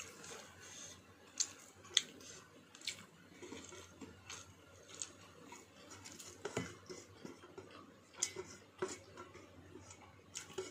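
Fingers scraping and tapping against a stainless steel bowl while eating by hand, with soft chewing: scattered light clicks and scrapes at irregular intervals.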